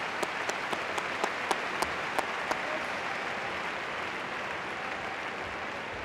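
Arena crowd applauding, with sharp clicks about three a second standing out over the first couple of seconds; the applause slowly dies down.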